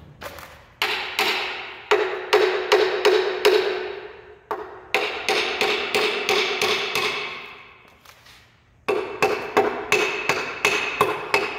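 Brass hammer striking the cast-iron cylinder head of a 5.9 Magnum V8 to break the stuck head loose from the block. The blows come in three flurries of about three strikes a second, each with a short metallic ring.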